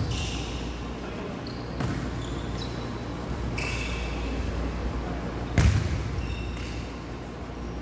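Volleyball rally: the ball struck and bouncing in a few sharp thumps, the loudest about five and a half seconds in as the ball comes down to the floor, with short squeaks of sneakers on the hardwood court.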